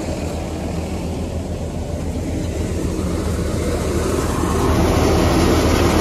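A tractor-driven wheat thresher running steadily. The New Holland 3600 tractor's engine hums low beneath the thresher's rushing mechanical noise, which grows louder about four and a half seconds in.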